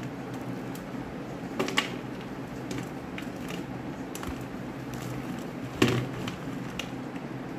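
A knife cutting and crumbling dry bar soap over a steel plate: scattered sharp crunches and clicks, loudest about two seconds in and again near six seconds, over a steady low hum.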